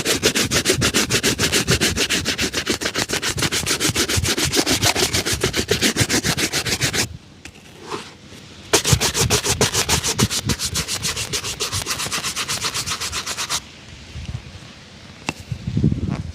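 A shoe being rubbed in fast, even back-and-forth strokes during a shoe shine, about eight strokes a second. The strokes run for about seven seconds, pause briefly, and run again for about five. Quieter handling sounds and a low thump come near the end.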